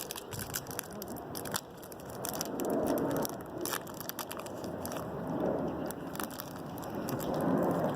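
Crinkling and crackling of the plastic packaging around a small cup of candy gum as it is handled and opened, with irregular sharp crackles throughout.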